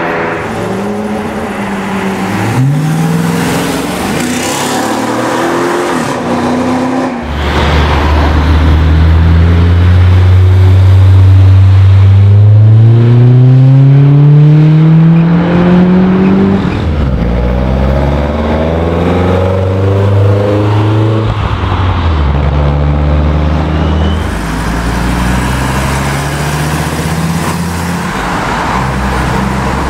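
Sports cars accelerating away one after another, their engines revving up through the gears. The loudest is a long climb in pitch over several seconds in the middle, where a Honda S2000's four-cylinder engine revs hard past.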